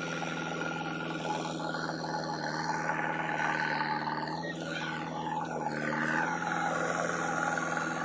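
JCB 3DX backhoe loader's diesel engine and hydraulics running steadily under working load, a whining note whose pitch sags twice, a little before halfway and about three-quarters through.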